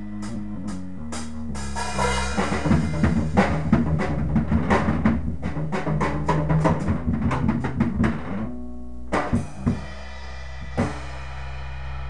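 Drum kit played in a live jam over held low bass notes; the drumming builds into a dense run of hits and cymbal crashes, then thins out to a few single accents about nine to eleven seconds in.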